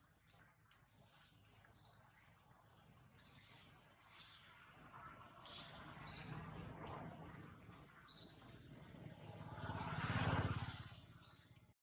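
Small birds chirping in quick repeated notes, high-pitched, throughout. A low rushing noise swells up under them, loudest about ten seconds in, then fades.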